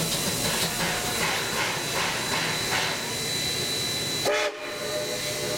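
Shay geared steam locomotive working slowly at close range: steam hissing with rapid, even exhaust beats, about three to four a second, and clanking running gear. About four seconds in, the sound breaks off briefly and a steady tone carries on to the end.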